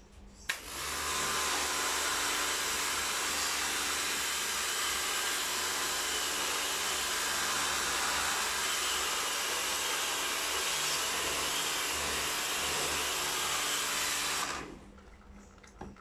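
Pressure washer spraying water onto an air-conditioner indoor unit's evaporator coil: a click about half a second in, then a steady spray hiss with the washer's motor hum, cutting off suddenly about fourteen seconds later.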